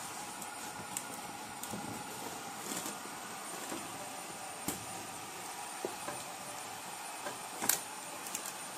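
Banana leaves rustling and crackling as hands fold and press them into a steel pot, with scattered sharp crackles, the loudest about three-quarters of the way through, over a steady background hiss.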